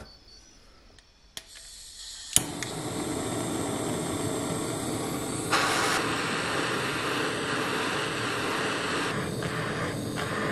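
Handheld butane torch: a click, then a sharp ignition click about two and a half seconds in as the flame lights, followed by the steady hiss of the flame, briefly louder around five and a half seconds in.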